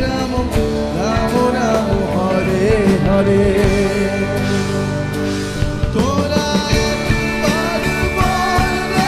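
Live rock band playing, with electric guitar and a drum kit under a male voice singing.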